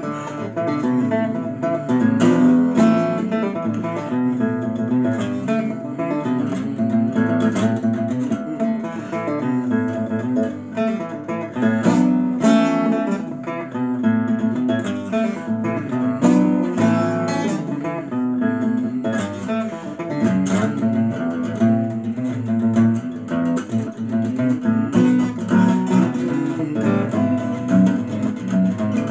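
Acoustic guitar played solo, a run of plucked and strummed chords that goes on without a break.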